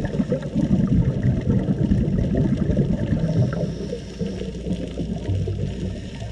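Muffled underwater noise picked up by a camera in a waterproof housing: a low, uneven rumble and slosh of moving water, with scattered faint clicks.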